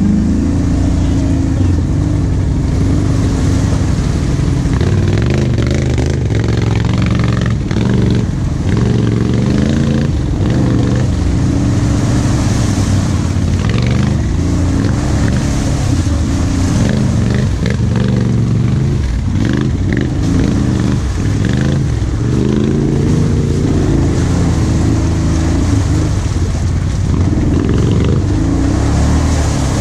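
Quad bike (ATV) engine running under load on a muddy track, its pitch rising and falling with the throttle.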